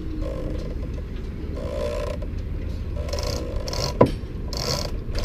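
Hands working a metal Lewmar sailing winch as it is put back together: short scraping and rattling sounds of metal parts, with one sharp metallic click about four seconds in. A steady low rumble runs underneath.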